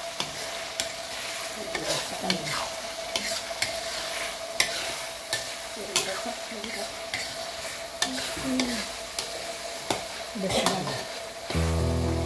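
A metal spatula stirring thick balado chili sauce with shrimp, liver, gizzard and petai beans in a metal wok. There are frequent clicks and scrapes of the spatula against the pan over a steady sizzle. Music comes in near the end.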